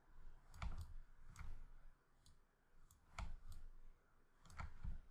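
Scattered clicks of a computer mouse: a handful of short, sharp clicks at irregular intervals, some coming in quick pairs.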